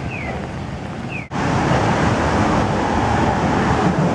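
Traffic noise on a rain-wet street, with a short falling chirp repeating about once a second. About a second in it breaks off abruptly and gives way to a louder, steady hiss and rumble.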